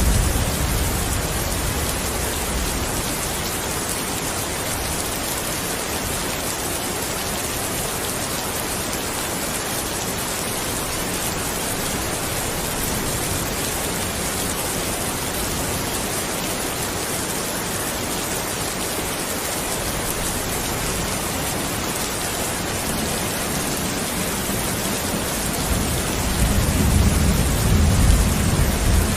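Steady, even rain. A low thunder rumble dies away in the first second, and thunder rolls in again near the end.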